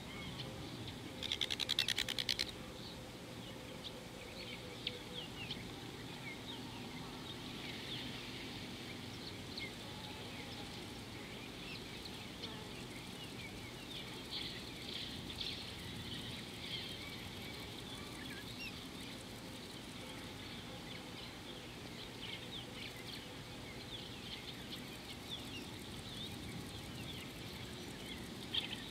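Many birds chirping and calling over a steady outdoor background, with a brief loud, rapid rattling call about a second in.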